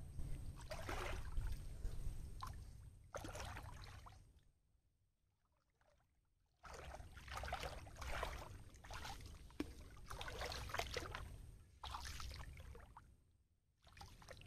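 Shallow water sloshing and splashing as a person wades and moves a hand net through it, in irregular bursts over a low rumble. The sound drops out to near silence for about two seconds in the middle.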